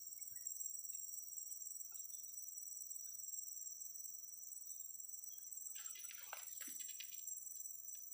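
Steady high-pitched chorus of crickets and other insects, with a short burst of clicks and rustling about six seconds in.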